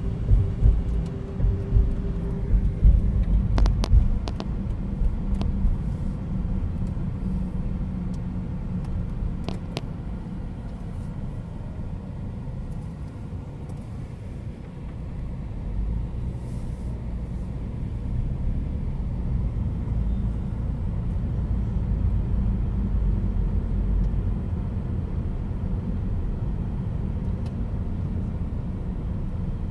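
Car on the move heard from inside the cabin: a steady low rumble of engine and tyre noise, with a few sharp clicks in the first few seconds. It dips a little and then grows louder from about halfway through.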